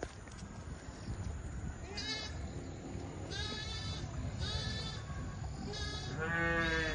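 Lambs bleating: about five short high-pitched bleats roughly a second apart, starting about two seconds in, the last one longer, lower and the loudest.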